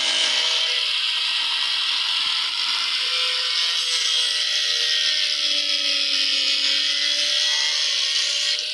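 A power tool running steadily as it works wood, with a hissing, abrasive cutting noise and a motor whine that sags a little about midway and then recovers.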